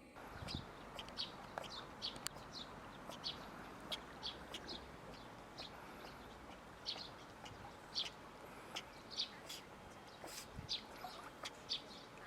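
Small birds chirping in short, high, repeated notes, about one or two a second, over a steady background hiss.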